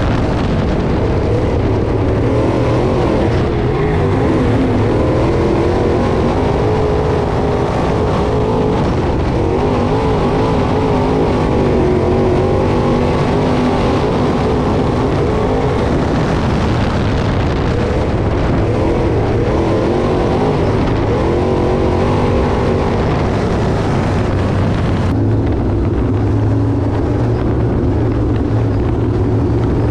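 Dirt-track race car engines running at speed, their pitch rising and falling continuously as the cars lap the track.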